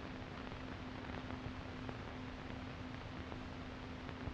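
Background noise of an old film soundtrack: a steady hiss with a low, constant hum and a few faint crackling clicks. No machine sound stands out.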